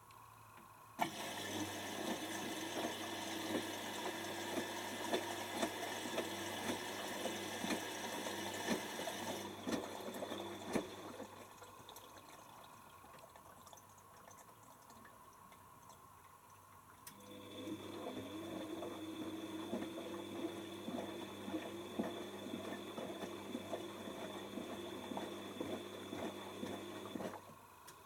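Whirlpool AWO12963S washing machine taking in water, with a hiss of water running into the drum. It starts suddenly about a second in, dies away around ten seconds, then starts again at about seventeen seconds and stops abruptly just before the end.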